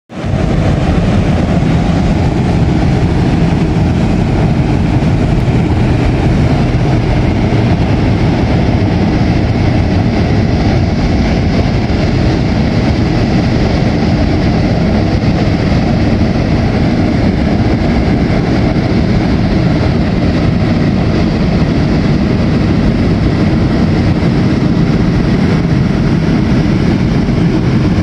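Power-plant steam blow: high-velocity steam venting through two silencers, a loud, steady, deep rush of steam with a hiss above it. This is the blowing of the boiler's steam lines to clear them of debris before the turbines go into service.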